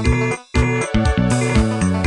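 Nokia 7360 polyphonic ringtone playing: a synthesized electronic tune with a bass line and bright chime-like notes. It stops for a split second about half a second in, then the music starts again.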